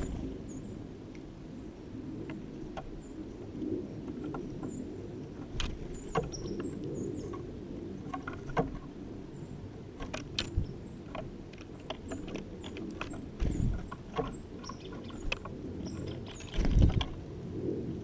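Small songbirds at a window feeder giving faint, high chirps scattered throughout, with sharp clicks and taps and a louder low thump near the end, over a steady low rumble.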